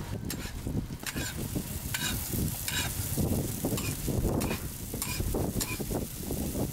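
Hotteok frying in oil on a hot griddle, sizzling, with frequent irregular clinks and scrapes of metal tools against the griddle.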